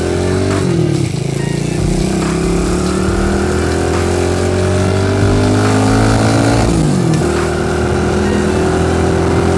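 Single-cylinder four-stroke engine of a Chinese Honda Monkey replica motorcycle running under way. Its pitch climbs slowly and dips sharply twice, just under a second in and about seven seconds in, then holds steady.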